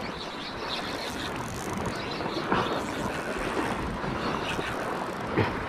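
Wind buffeting the microphone over the wash of the sea, a steady noisy rush, with a couple of faint brief knocks or splashes about two and a half and five and a half seconds in.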